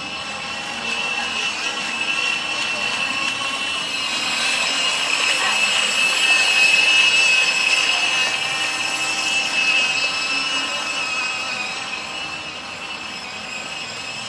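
Motor of a radio-controlled model rubber dinghy running flat out with a high, steady whine, growing louder as the boat passes close by around the middle and fading as it heads away.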